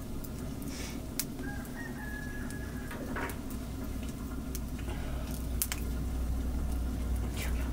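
Wood fires crackling and popping in an open hearth under an iron griddle of flatbread, over a low steady rumble of the flames. A short high bird call sounds about a second and a half in.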